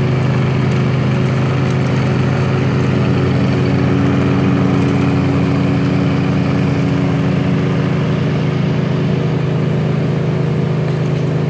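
Engine of a Toro 22-inch all-wheel-drive Recycler push mower running steadily while mowing grass.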